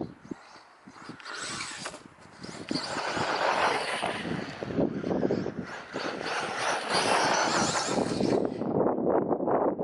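Wind buffeting the microphone, starting about a second in, over a brushless RC short-course truck driving across rough ground with a run of knocks and rattles.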